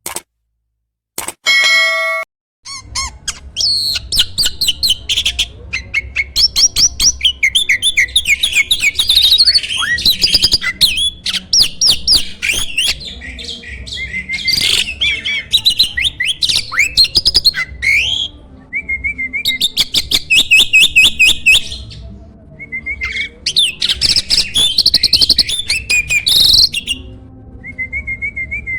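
A jalak (starling) singing a loud, fast, varied song of chirps, whistles and sliding notes in long bursts, broken by short pauses filled with lower trills. Just before the song begins, a short pitched tone sounds about two seconds in.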